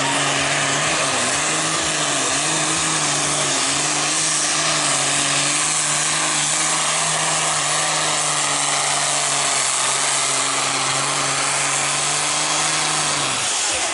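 Diesel pulling tractor running flat out under heavy load as it drags a weight-transfer sled, a loud, steady engine note that wavers slightly in pitch a few times early on. It cuts off suddenly near the end.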